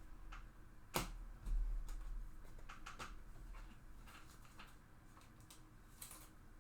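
Trading cards being handled and flipped through, a string of light clicks and ticks. There is a sharper tap about a second in, followed by a brief low bump.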